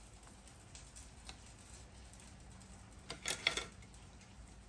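Dry oven-ready lasagna sheets handled and laid into a glass baking dish: faint light ticks, with a short cluster of clicks and rustles about three seconds in.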